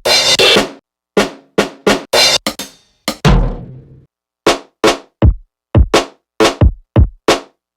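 Single drum samples triggered one by one on an MPC Live 2 as a kit is put together: separate hits with short gaps, not a steady beat. Snare-type hits come first, then deep kick drum hits from about three seconds in.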